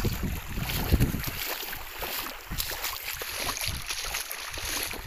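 Footsteps wading and splashing through shallow water in an irregular rhythm. Wind buffets the microphone for about the first second, then dies down.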